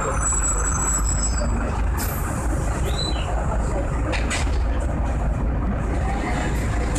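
Steady low engine rumble and running noise heard from inside the cabin of an Irisbus Agora V3 city bus, with two brief sharp noises, about two seconds in and again just past four seconds.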